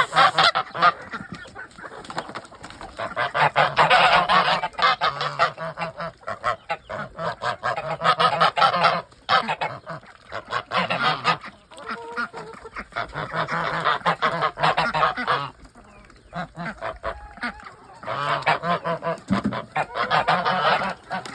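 Backyard poultry flock calling noisily: dense, overlapping calls come in loud bouts of a few seconds each, with quieter gaps between them.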